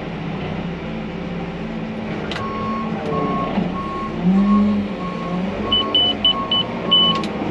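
Manitou telehandler's diesel engine running, heard from inside the cab as the machine moves off, its note rising briefly about four seconds in. A couple of seconds in, its reversing alarm starts beeping, about two beeps a second. Near the end a few quicker, higher-pitched beeps join it.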